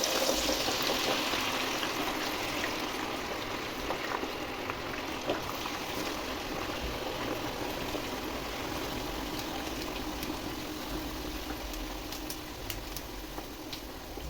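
Food sizzling in hot cooking oil, with scattered pops and crackles. The sizzle is loudest right at the start and eases off slowly.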